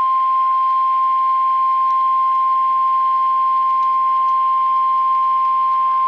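NOAA Weather Radio warning alarm tone: one loud, steady single-pitch tone at about 1050 Hz. It signals that an emergency warning message follows.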